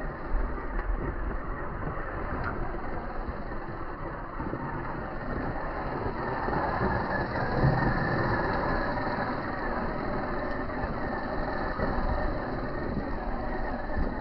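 Gmade GS02F Buffalo RC crawler driving, its small electric motor and gears running under a steady noisy hiss.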